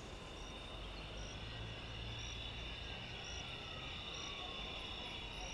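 Night ambience of crickets trilling steadily, with a short high chirp repeating about once a second. Under it, a distant siren slowly falls in pitch.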